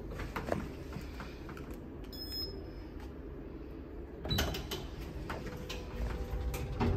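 Lift car interior with a steady low hum; a short, high electronic beep about two seconds in, then a sharp click a little past four seconds as the floor button on the GLC traction lift's car panel is pressed, followed by a few soft clicks and a knock near the end.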